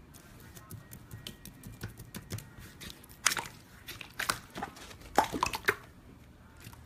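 Clear jelly-like slime squeezed and kneaded by hand, giving sticky wet squelches and crackling pops, loudest in clusters from about three seconds in to near the end.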